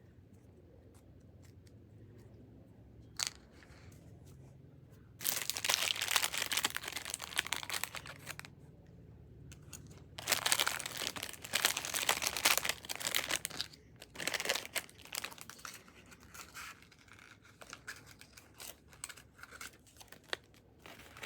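Packaging wrapper being torn open and crinkled by hand, in three long spells of tearing and rustling, then lighter crinkles near the end.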